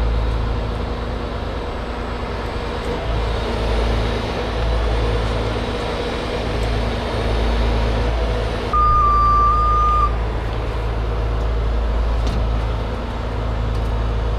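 Heavy rotator tow truck's diesel engine running steadily during a lift. About nine seconds in, a single steady alarm-like tone sounds for just over a second and is the loudest thing heard.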